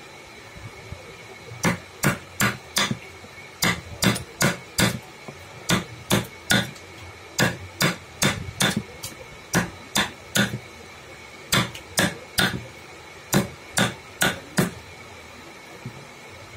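A mallet striking a carving chisel as it cuts into a wooden carving block. There are about two dozen sharp taps, in quick groups of three or four with short pauses between, starting under two seconds in and stopping near the end.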